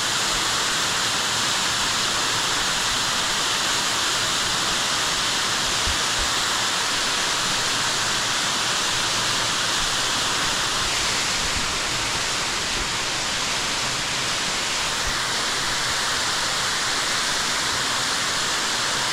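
Waterfall pouring: a steady, loud rush of water with no break.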